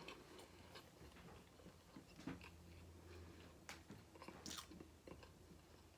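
Faint close-up chewing of a large mouthful of food, with scattered soft smacks and mouth clicks.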